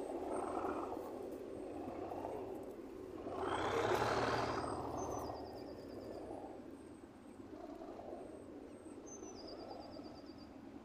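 Distant diesel locomotive engine running, with a louder surge lasting about a second near the middle as it revs. Birds chirp briefly twice.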